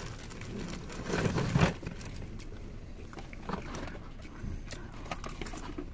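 Plastic bag rustling as it is handled, loudest about a second in, then a quiet cab with a few faint clicks and handling sounds over a low steady hum.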